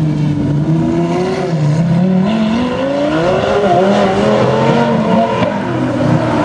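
Lamborghini Gallardo V10 engine accelerating hard away, its pitch steady and low at first, then climbing steadily through the middle before dropping back near the end.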